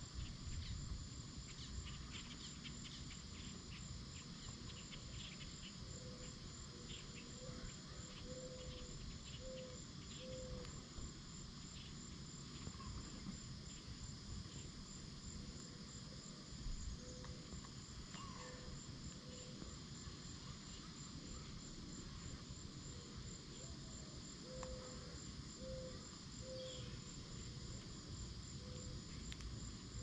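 Steady, high-pitched insect chirping, pulsing evenly and without a break, over a low rumble of wind on the microphone. A low, soft call repeats in short runs of several notes, three times.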